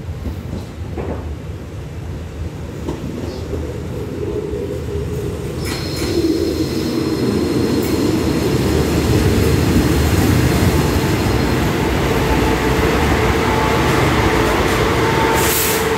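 Thai special express diesel railcar set pulling into the platform: engine and wheel rumble growing louder as it comes alongside, with a thin, high, steady brake squeal through the middle. A short loud burst of hissing comes near the end as it stands.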